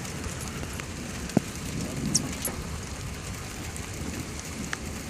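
Steady low rumble of storm noise with scattered light raindrop ticks, and one sharp tap about a second and a half in.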